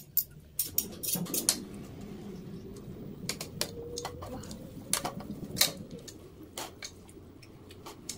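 Metal spoon and fork clinking and scraping against a stainless steel pot while tossing a shredded salad. There are rapid clinks for the first second or so, then scattered single clinks over a soft rustle of the mixed leaves.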